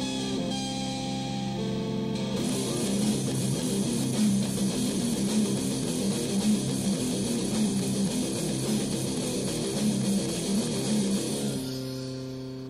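Guitar-driven rock song. It opens on held guitar notes, then loud strummed guitar comes in for most of the stretch, and near the end it drops back to one ringing chord that begins to fade.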